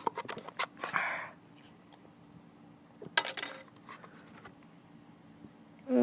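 Eating shaved ice: a spoon clicks and scrapes in the cup, with a couple of short noisy bursts about a second in and about three seconds in. Near the end comes the loudest sound, a short vocal sound falling in pitch.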